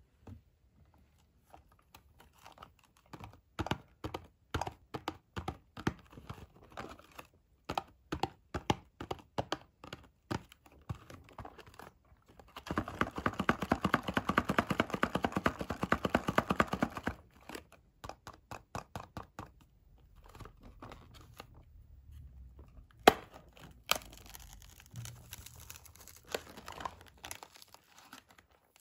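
Close-up handling of Kinder Surprise cardboard boxes: scattered taps and scratches of fingers on the card, then about four seconds of continuous rustling as a box is moved about. Quieter scraping and two sharp clicks follow, and near the end the glued cardboard flap is torn open.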